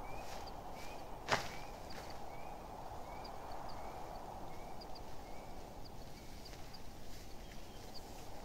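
Forest ambience: a short chirping call repeated regularly, about one and a half times a second, over a steady hiss, with one sharp click about a second in.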